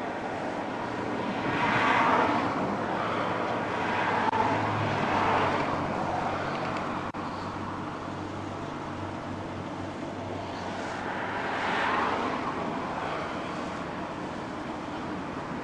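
Highway traffic passing: three swells of tyre and engine noise as vehicles go by, over a steady road rumble.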